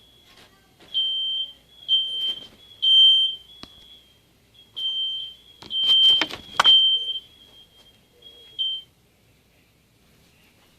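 High-pitched smoke-alarm beeping: a steady tone in short beeps about once a second, with two sharp knocks about six seconds in. The beeping stops about nine seconds in.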